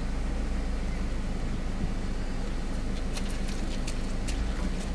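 Steady low rumble of a vehicle engine idling, with a few short sharp clicks about three seconds in.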